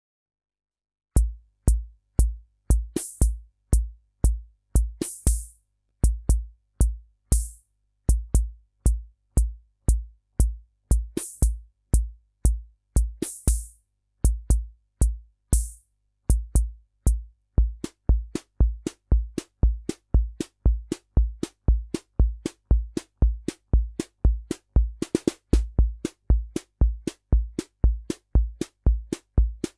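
Korg SR-120 (Univox SR-120 / Mini Pops) analog rhythm machine playing a preset rhythm pattern of low bass-drum thumps, sharp clicks and hissing cymbal strokes. It starts about a second in, and about halfway through the pattern changes to a busier one with denser clicks.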